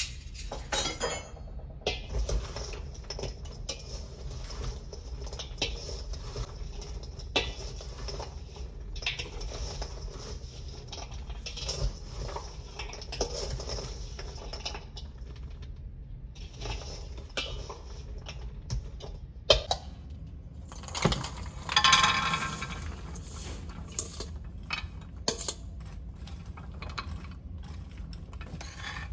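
Kitchen clatter of dishes and utensils being handled: scattered clinks and knocks, with a longer, louder rattling stretch about two-thirds of the way through.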